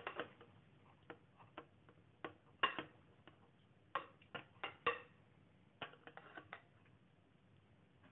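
Knife and fork clicking and tapping against a glass baking dish while cutting a roast chicken roll: irregular sharp clicks, some in quick pairs, that stop about two-thirds of the way through.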